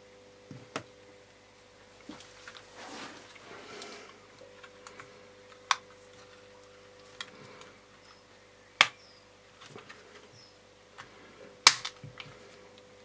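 Plastic casing of a Quansheng UV-5R Plus handheld radio being pressed and snapped back together by hand: several sharp clicks a few seconds apart, the loudest near the end, with soft handling rustle in between.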